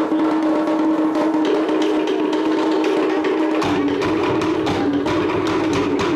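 Cook Islands wooden slit log drums beaten rapidly with sticks in a fast, dense rhythm. A deeper drum layer comes in about three and a half seconds in.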